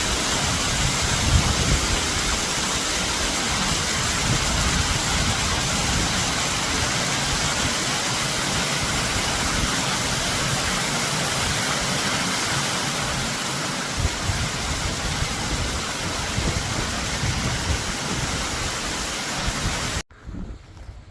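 Strong wind blowing on the microphone: a loud, even rush with irregular low buffeting. Near the end it cuts off abruptly to a far quieter wind.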